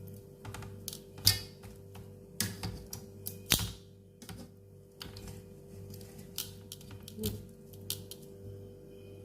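Irregular clicks and clacks of cooking tongs knocking against a grill pan as pieces of pork are turned, over a steady hum.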